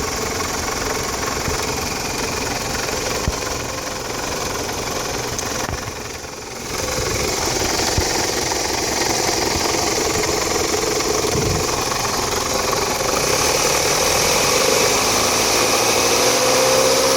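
Toyota Camry engine idling steadily with fresh oil, a little louder from about a third of the way in. A light extra noise comes from the timing-belt cover, which the owner says it has always made.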